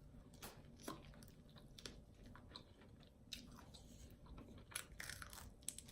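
Faint chewing and biting of crispy fried chicken wings close to the microphone: irregular small crunches and clicks, thickening briefly near the end.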